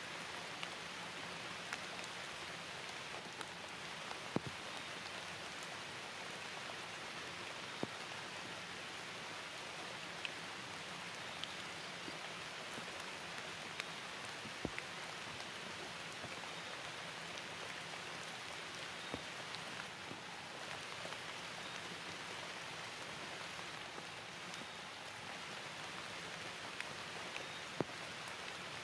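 Steady rain falling, a constant even hiss with a scattering of sharper, louder drops landing close by.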